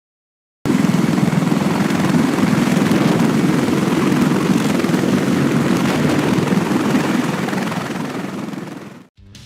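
CH-53K King Stallion heavy-lift helicopter hovering: loud, steady rotor and turbine noise with a rapid flutter. It starts suddenly about half a second in, then fades and cuts off just before the end.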